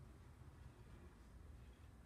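Near silence: a faint steady low hum from a 1946 Ferranti valve radio, switched on and turned up but receiving nothing because its aerial is disconnected.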